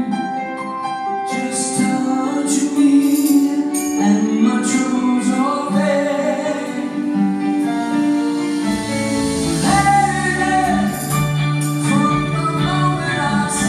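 Live rock band music heard from the audience in a concert hall: sustained keyboard chords over cymbals, with bass and the full band coming in about nine seconds in.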